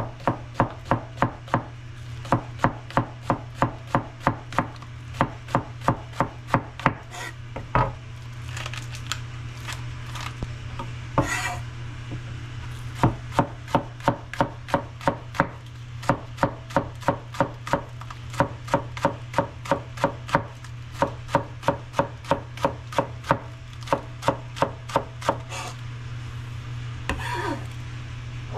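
Knife chopping on a cutting board in quick, even strokes, about three a second, with a few short pauses, over a steady low hum.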